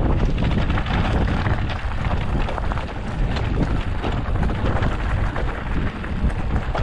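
Wind buffeting the microphone, with the rumble and rattle of riding fast down a rough trail.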